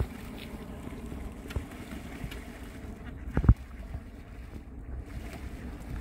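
Mallard ducks splashing in lake water as they bathe, a steady wash of churning water with a few small sharp splashes. There is one loud thump about three and a half seconds in, and wind rumbles on the microphone.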